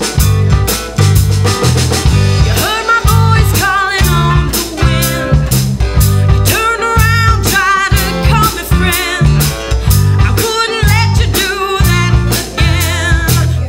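Live folk-rock band playing an instrumental passage: drum kit and bass keep a steady beat under guitars, while a lead line wavers with wide vibrato and bends in pitch.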